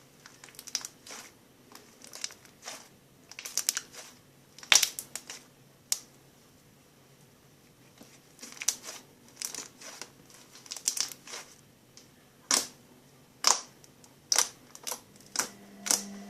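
Slime being worked and squeezed in the hands, giving irregular sharp clicks and pops in clusters, with a few louder pops about five seconds in and again near the end.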